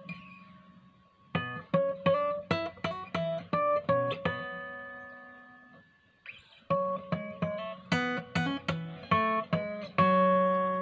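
Martin DX1 acoustic guitar with a solid spruce top, played note by note in two quick runs of plucked single notes. Between the runs one note is left to ring and fade. Near the end a full chord is struck and rings on.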